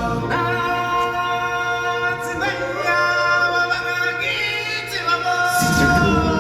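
Stage-show choir singing long, held notes. A deep low note drops out at the start and comes back in near the end.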